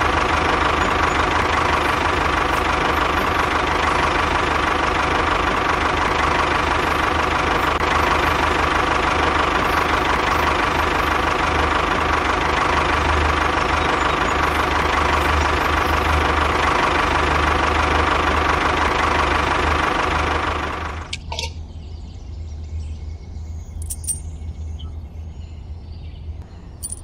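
Mini DIY tractor running steadily with an engine-like drone while it pushes sand with its dozer blade; the sound cuts off abruptly about three-quarters of the way through, leaving a quieter background with a few faint clicks.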